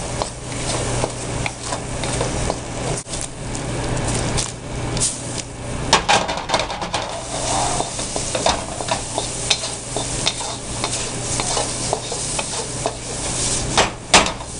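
Scrambled eggs sizzling in hot oil in a wok while a wooden spatula stirs them, scraping and tapping against the pan many times, over a steady low hum.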